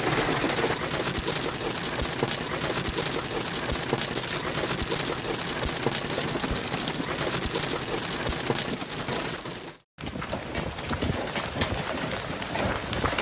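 Hailstorm: hail and rain pelting down on surfaces, a dense run of many small impacts over a steady rushing noise. The sound cuts out for a moment about ten seconds in and picks up again with the same kind of pelting.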